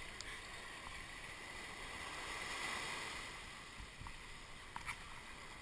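Small waves washing up over the sand at the water's edge. The wash swells to its loudest about halfway through, and a couple of light clicks come near the end.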